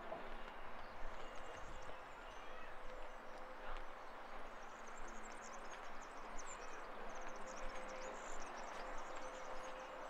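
Outdoor ambience: a steady background hiss with faint small-bird chirps high up, thickest in the second half.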